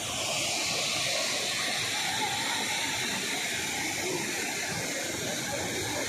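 Waterfall water rushing over rock and into its pool, a steady hiss.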